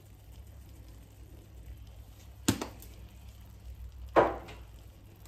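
Two sharp knocks of kitchen items being handled, about a second and a half apart, over a low steady hum; the second knock is louder and rings briefly.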